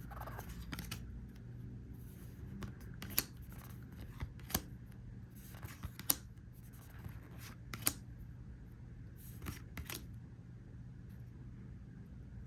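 Trading cards being handled and flipped through one at a time: scattered light clicks and snaps of card stock, a second or more apart, over a faint steady hum.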